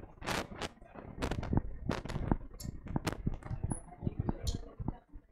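Irregular clicks and rustling with a few short hisses, scattered unevenly and without any rhythm.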